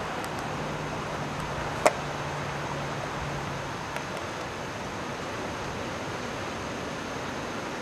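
Strong wind rushing, with a low steady hum under it that stops a little under four seconds in, and one sharp knock about two seconds in.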